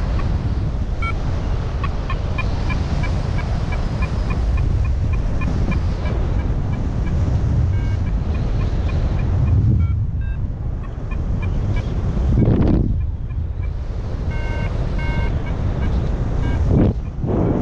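XC Tracer Maxx variometer beeping in quick, evenly spaced short pulses, the climb tone for rising air. The beeping stops about halfway through and returns briefly near the end, over steady wind rush on the microphone that swells twice.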